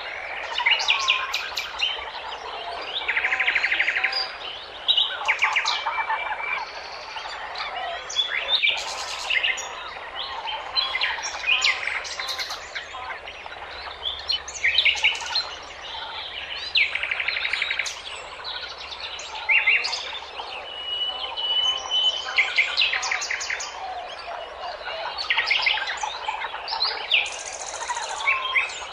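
Many small birds chirping, trilling and whistling at once, a dense chorus of overlapping calls with brief rapid trills scattered throughout.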